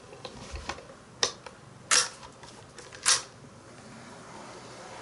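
Electric point machines on Kato Unitrack HO-gauge turnouts snapping over: three sharp mechanical clicks, the two loudest about a second apart. A faint steady hum sets in after them.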